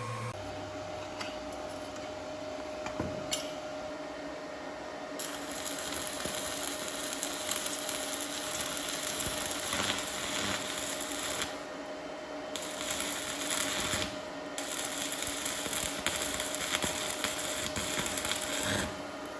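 Stick (MMA) arc welding with a TOPSHAK ZX7-200 inverter welder: the arc crackles and sizzles in runs, starting about five seconds in, breaking off twice briefly and stopping near the end. A steady thin whine sounds underneath throughout.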